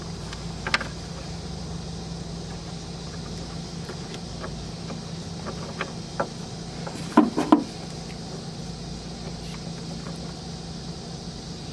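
Short clicks and clacks of wire and a terminal crimper being handled while wires are fitted into an insulated butt splice, the loudest a quick pair of clacks about seven seconds in, over a steady low hum.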